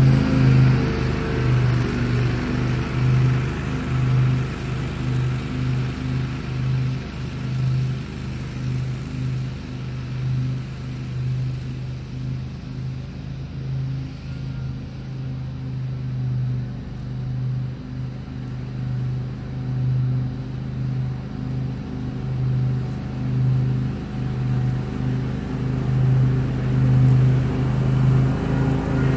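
Grasshopper Model 612 riding mower's engine running steadily while mowing, with a low hum that wavers slightly. It fades as the mower drives away and grows louder again near the end as it comes back.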